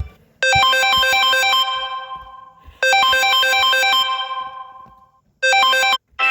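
A Samsung Galaxy A50 stock ringtone: a short, bright synthesized melody of quick notes that repeats about every two and a half seconds. The third time it cuts off abruptly after half a second, and a different tone starts right at the end.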